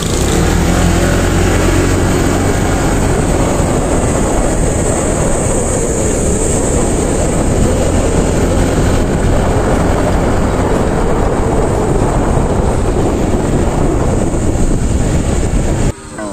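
Loud, steady rush of wind on the microphone mixed with the running noise of a moving vehicle, heaviest in the low rumble. It drops off sharply near the end.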